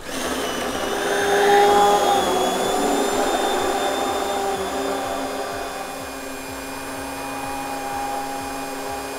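Stick blender's motor whirring steadily with its blade submerged in a beaker of hot cream and white chocolate, emulsifying it into a namelaka. Loudest about two seconds in; the pitch shifts slightly about halfway through.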